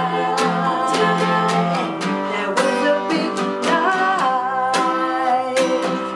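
Acoustic guitar strummed in a steady rhythm while voices sing a song together, holding long notes.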